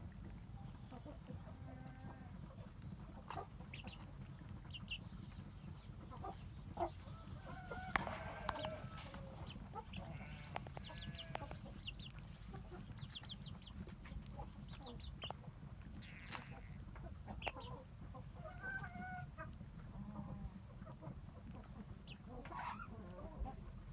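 Chickens clucking and calling in short, scattered calls, a few of them drawn out to about a second, over a steady low rumble.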